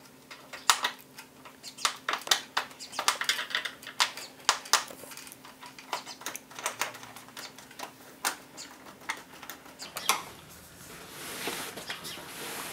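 A screwdriver turning a screw out of a plastic heater side cover: a string of irregular sharp clicks as the bit turns and reseats in the screw head. Near the end the clicks give way to a softer rustling of handling.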